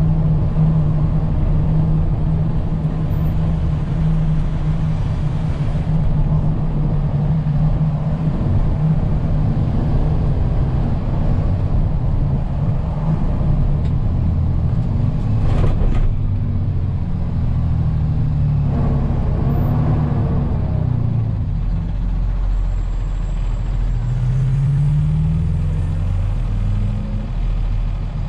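Tow truck's engine and road noise heard from inside the cab while driving, the engine pitch shifting with speed and rising again near the end. A single sharp click about sixteen seconds in.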